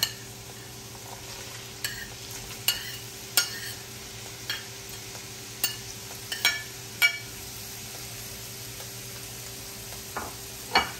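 Cabbage, carrot and mushroom frying with minced pork in a pan: a steady sizzle, with a metal cooking utensil clinking and scraping against the pan about a dozen times at irregular intervals as the filling is stirred.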